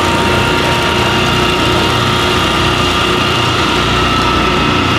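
ALAR Auto-Vac drum vacuum filter's electric pump motors and vacuum pump running steadily: a constant hum with a few steady high whining tones.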